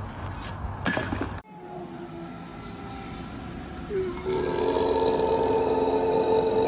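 A short whoosh as boiling water is flung from a pot into freezing air. Then a large mastiff howls: a loud, long, steady howl that starts about four seconds in.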